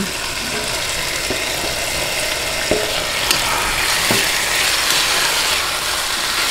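Raw chicken pieces sizzling as they are sautéed in oil with garlic and onion, stirred with a stainless steel ladle that scrapes and knocks against the pot a few times.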